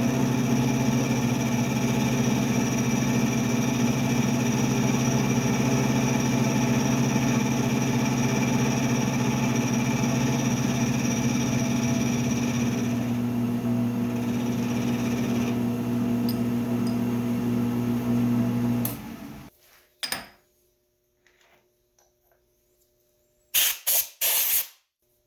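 Milling machine running with an end mill cutting a face on steel flat bar: a steady motor hum with a higher cutting whine that stops partway through. The machine then shuts off, and a few short sharp knocks follow near the end.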